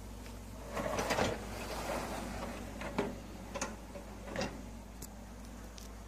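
Dishwasher basket rattling on its runners about a second in, followed by about five light clicks and knocks of the wire rack and its contents.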